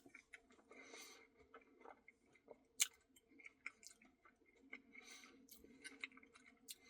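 Faint chewing and mouth clicks of someone eating a Reese's Pieces cookie dough Blizzard, with one sharper click about three seconds in.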